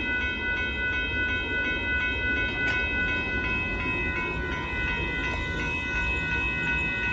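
Railroad crossing bells ringing in a steady repeated pulse, over the low continuous rumble of a freight train moving off past the crossing.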